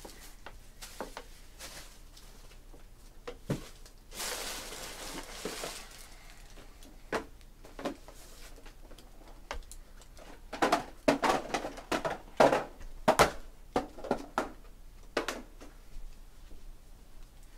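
Scattered small clicks and taps of things being handled, with a brief rustle about four seconds in and a run of louder, quicker clicks after about ten seconds.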